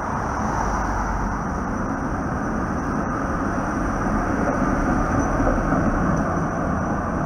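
1947 PCC streetcar No. 1060 rolling past close by, its steel wheels running on the street rails, growing louder as it draws level about five seconds in.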